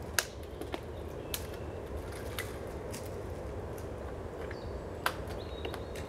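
A few sharp snaps of dry spruce twigs breaking as someone climbs the tree: one loud snap just after the start, two lighter ones within the next second or so, and another loud one about five seconds in. Under them runs a steady low background rumble.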